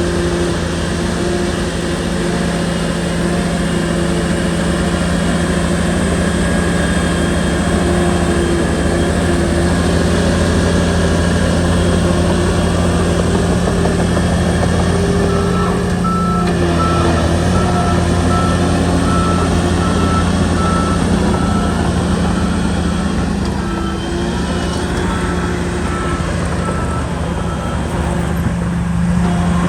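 Shantui bulldozer's diesel engine running steadily while working soil. From about halfway through, a reversing alarm beeps at a regular pace for most of the rest.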